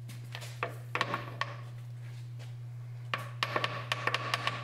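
Small hammer tapping the drive shaft of a 2003 GMC Envoy XL back into place at the rear differential, metal on metal. A few light taps come in the first second or so, then a quicker run of ringing taps from about three seconds in, over a steady low hum.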